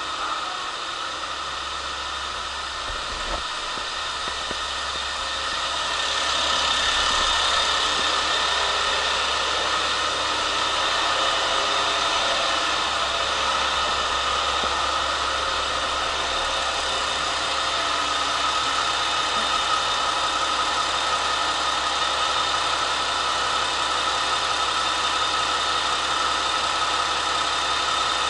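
KiHa 47 diesel railcar's engine idling steadily at the platform, getting louder about six seconds in and then holding level.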